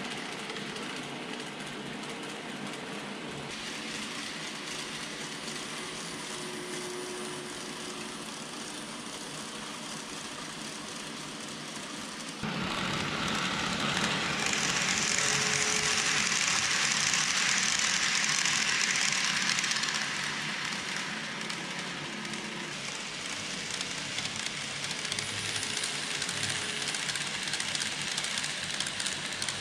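A KATO N-gauge 117 series model electric train running on the layout track: a steady rolling hiss of wheels on rail with motor whir. It is louder for several seconds in the middle as the train passes close.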